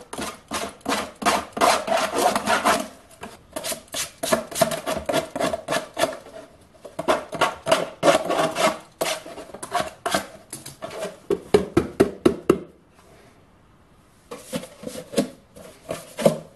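Knife blade scraping along the cut edge of a plastic jug, cleaning up the rough edges: runs of quick strokes, about four a second, with short pauses and a longer break a little after the middle.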